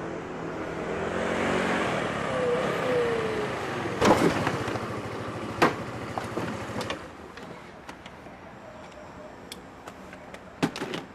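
A car passing by, its noise swelling and fading away with a falling pitch, followed by a few sharp knocks and clicks.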